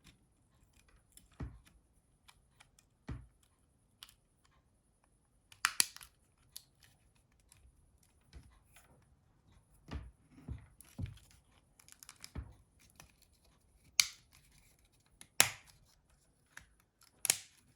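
Parts of a Nokia 6600 phone, its UI board and plastic housing, clicking and snapping into place as they are pressed together: many sharp clicks and taps scattered irregularly, the loudest about six seconds in and three more in the last four seconds.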